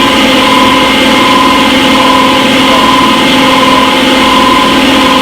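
Front-load washing machine in its spin cycle: a steady motor hum with a whine that swells and fades roughly once a second as the drum turns.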